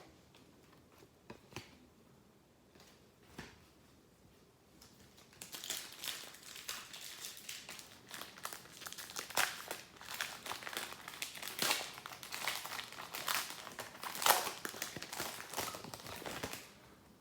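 Foil trading-card pack wrapper crinkling as it is torn open and handled: a dense run of crackles from about five seconds in that stops just before the end, after a few faint taps.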